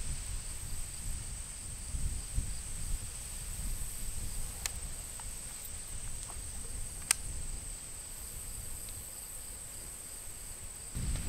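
Steady high-pitched drone of insects, over a low rumble of wind on the microphone, with a few faint clicks around the middle.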